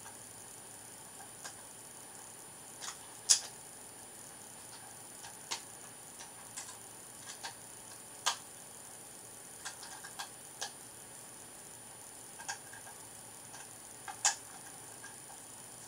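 Plastic Lego bricks clicking as they are handled and pressed together: a scattering of short, sharp, irregular clicks, with three louder snaps about 3, 8 and 14 seconds in.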